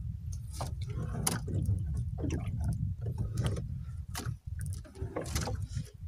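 Irregular clicks and knocks of a longline being hauled in by hand over the side of a small boat, over a steady low rumble.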